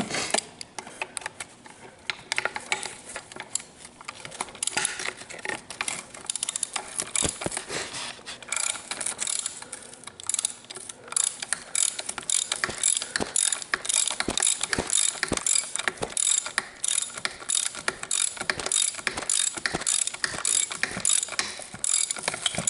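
Hand ratchet clicking through repeated back-and-forth strokes as it runs down and tightens bolts by hand, the strokes falling into a steadier rhythm in the second half.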